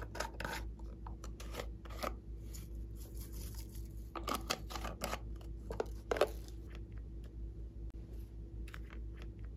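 Small plastic bottles handled and tapped, and sequins shaken from a bottle onto slime, making irregular short rattling and scraping sounds, busiest about four to six seconds in.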